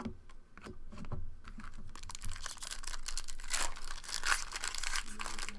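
Foil trading-card pack wrappers being torn open and crinkled by hand, with irregular crackling that grows busier about two seconds in.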